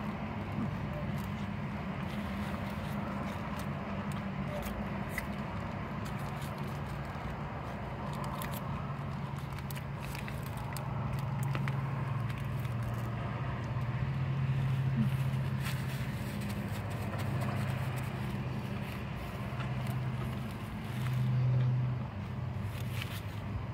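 A person biting into and chewing a banh mi sandwich close to the microphone, with small crackles of the paper wrapper, over a steady low hum.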